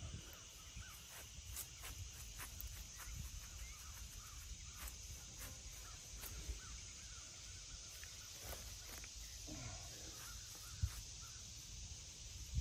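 Quiet outdoor ambience with crows cawing in the distance, over a steady high hiss. Faint scattered clicks and scrapes come from hands working on a flat stone grave marker, with one sharper tick about eleven seconds in.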